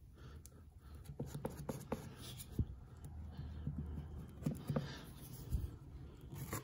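Spreading knife scraping and smearing caulk over a crack in a wall, in short irregular strokes with a few small clicks.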